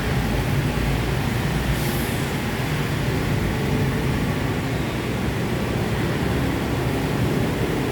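Steady road-traffic noise, vehicle engines running, with a brief hiss about two seconds in.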